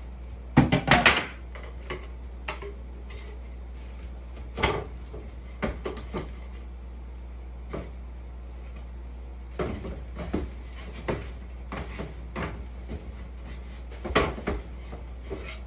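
Wooden boards and panels knocking and clattering as they are handled and laid on a hardwood floor during assembly, in scattered short clusters, the loudest a quick flurry of knocks about half a second in.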